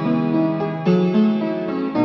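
Background music: a keyboard melody of held notes that change every half second or so.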